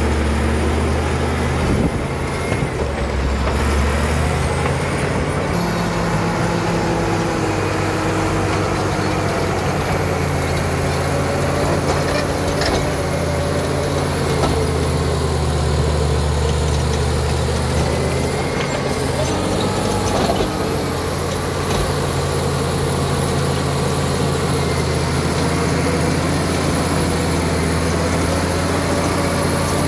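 Caterpillar D7G bulldozer's six-cylinder diesel engine running hard as the dozer pushes earth and rock with its blade, with a thin high whine over it. The engine note shifts as the load changes, about two seconds in and again about two-thirds of the way through.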